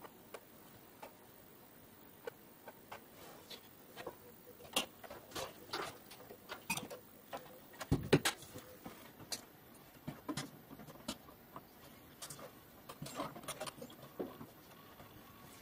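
Scattered clicks and knocks of hands handling workshop gear: light clicks at a laptop, a louder knock about halfway through as the yellow plastic tester case is handled, then small knocks and clinks from working on the valves in the amplifier chassis.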